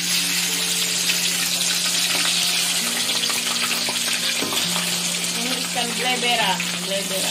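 Whole fish deep-frying in hot oil in a wok: a loud, steady sizzling hiss of bubbling oil, as more fish are laid into the pan.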